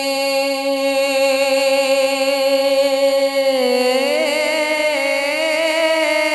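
A man singing a devotional Urdu manqabat, holding one long wavering note on a vowel. About three and a half seconds in, the pitch glides up and the note is held again.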